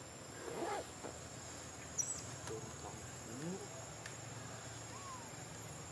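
Steady high-pitched drone of insects, with a few short, faint rising and falling calls and a single sharp click about two seconds in.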